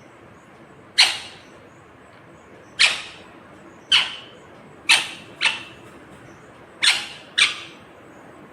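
Ringneck parrot squawking: seven short, sharp calls at uneven intervals, the later ones coming in quick pairs.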